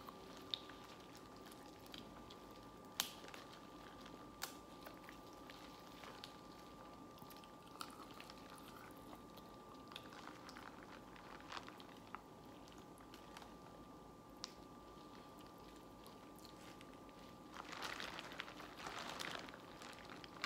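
People eating a seafood boil of crab legs, crawfish and shrimp: quiet chewing with a sharp click or crack every few seconds as shells are handled, and a louder stretch of crackling near the end. A faint steady hum runs underneath.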